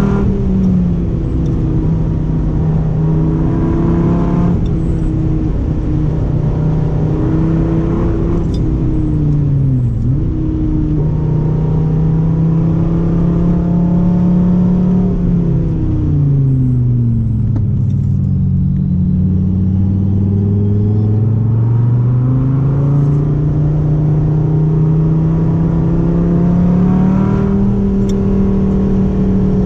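Dodge Viper's V10 engine running hard at high revs. Its note dips sharply for a moment about ten seconds in. Around the middle it falls away slowly to a much lower pitch, then climbs steadily back up over the next several seconds.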